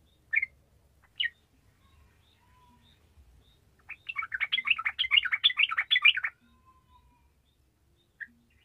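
Yellow-vented bulbul (trucukan) singing: two short sharp chirps, then a rapid bubbling run of notes lasting about two seconds, and a single chirp near the end.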